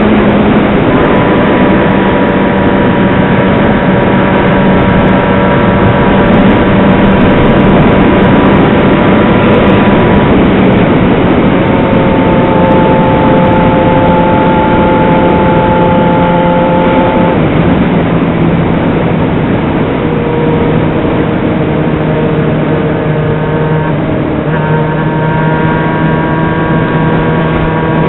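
Yamaha XJ6's inline-four engine running steadily at cruising speed on the move, its pitch rising and falling a little a few times, under a constant rush of wind noise.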